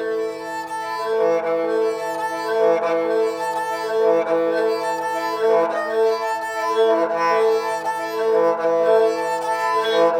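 Kamancheh open strings bowed together, several steady notes ringing at once, with the sound swelling and dipping about once a second as the bow goes back and forth.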